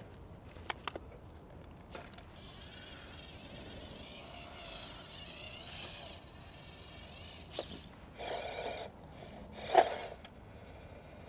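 Electric motor and gear drive of a 1/12-scale FMS Toyota FJ45 RC truck whining at a wavering pitch as it crawls over logs and up a wooden rail, preceded by a few sharp clicks. Near the end come two short, louder noises, the second the loudest.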